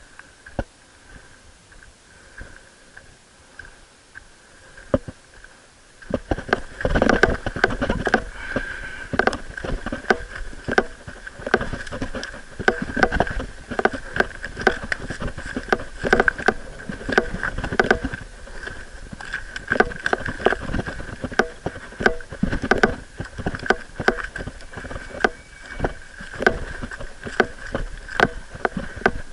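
Footsteps and scrambling on loose stones and rock, starting about six seconds in: a dense, irregular run of crunches, scrapes and sharp knocks close to the microphone. A steady high-pitched tone runs underneath.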